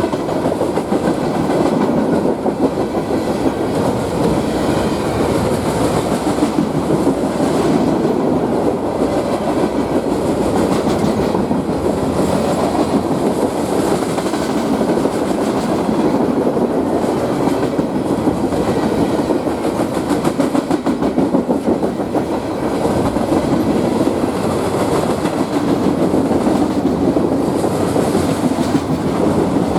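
Freight train cars rolling past steadily, their steel wheels clicking over the rail joints.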